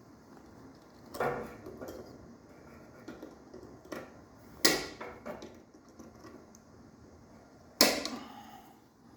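Hand tools clicking and knocking against the scooter's brake caliper and retaining pin: four separate sharp knocks a second or more apart, the loudest near the end with a brief ring after it.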